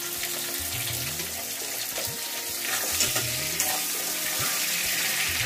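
Potato wedges sizzling in hot oil in a steel kadai while a spatula scrapes and knocks against the pan as they are stirred; the sizzle gets louder about three seconds in.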